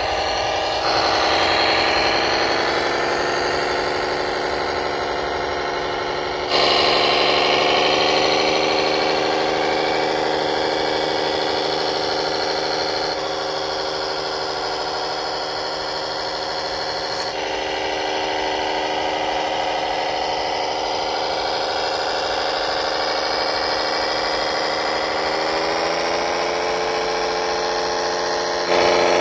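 Radio-controlled model tractor driving while it tows a loaded low-loader trailer: a steady mechanical whine from its drive. The whine jumps abruptly in pitch and loudness several times.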